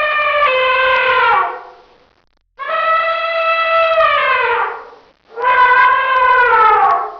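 Elephant trumpeting: three long, brassy calls with short gaps between them, each sliding down in pitch as it ends.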